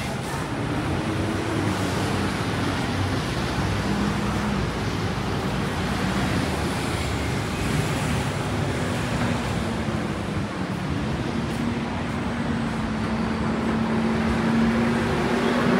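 City street traffic noise from passing and idling vehicles, a steady wash of sound. A low steady hum comes in about halfway through and gets a little louder near the end.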